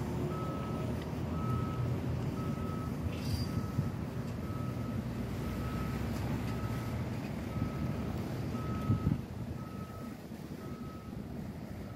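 Back-up alarm on construction machinery beeping steadily about once a second over the low rumble of working engines. The rumble falls away about nine seconds in while the beeping goes on.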